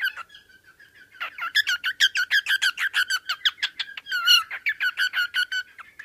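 Pet cockatiel chattering close to the microphone: after a short pause at the start, a fast run of short chirps, several a second, that stops just before the end.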